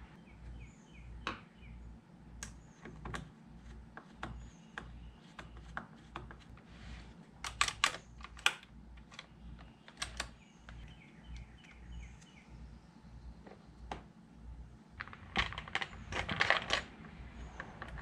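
Scattered clicks and knocks of plastic parts being handled and fitted as a chainsaw's air filter and top cover go back on, with denser bursts of clatter about halfway through and again near the end.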